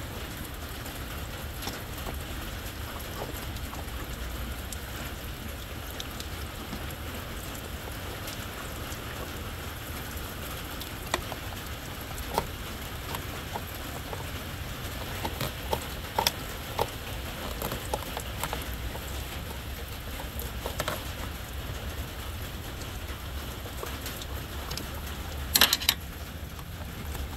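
Steady hiss with scattered sharp metallic clicks and ticks, and a quick cluster of them near the end: a flat-blade screwdriver working the worm-drive clamp on a lower coolant hose.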